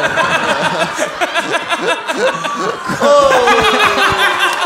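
Several men laughing hard together, their laughs overlapping. About three seconds in, one voice lets out a long falling cry of laughter.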